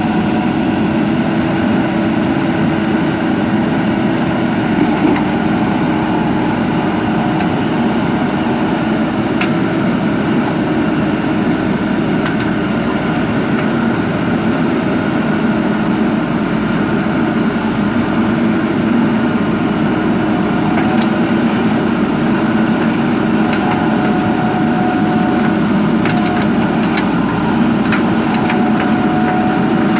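JCB backhoe loader's diesel engine running steadily, with a higher whine that comes and goes in the second half and a few light knocks near the end.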